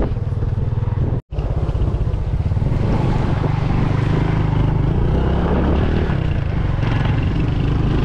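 Motorcycle engine running under way with three riders aboard, heard from the passenger seat as a steady pulsing rumble. The sound cuts out completely for an instant about a second in.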